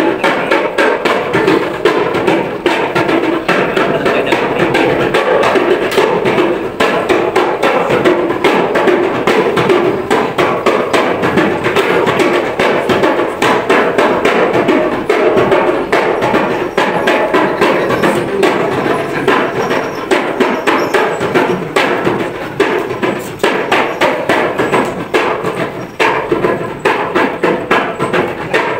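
Instrumental music driven by quick, steady percussion strikes.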